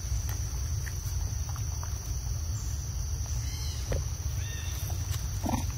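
Insects, crickets by the sound, chirring steadily at a high pitch over a constant low rumble. A few soft clicks and a brief low call come near the end.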